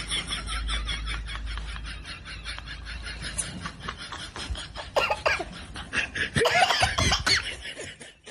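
A person laughing: a long run of quick, breathy pulses that fades over the first few seconds, then louder bursts of laughter about five seconds in and again around six and a half to seven seconds in.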